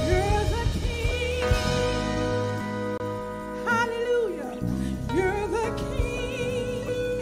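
Gospel worship music: a solo voice sings long, sliding phrases with wide vibrato over held keyboard chords and a steady bass.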